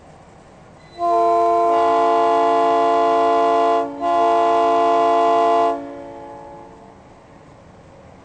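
Truck-mounted Hornblasters train horn blowing a chord of several steady notes in two blasts: one of about three seconds, a brief break, then one of nearly two seconds. The higher notes come in a moment after the lower ones, and the chord echoes faintly for about a second after it stops.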